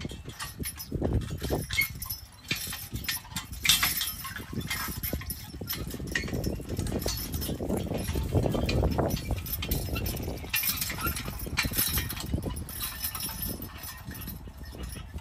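Team of Belgian draft horses walking on grass while pulling a wooden-wheeled wagon: irregular hoofbeats mixed with the wagon's wheels and frame rattling, over a steady low rumble.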